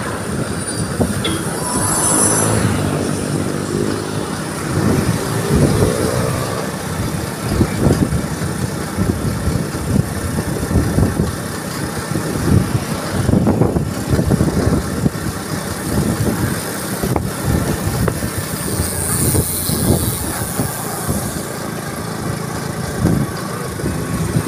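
Wind buffeting the microphone of a phone held on a moving motorcycle, over the motorcycle's engine running and passing road traffic. An engine tone rises and falls a few seconds in.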